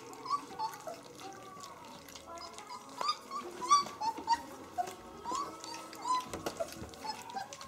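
Three-week-old puppies eating from a shared dish, giving many short high whimpers and squeaks, with small clicking and smacking sounds of feeding in between.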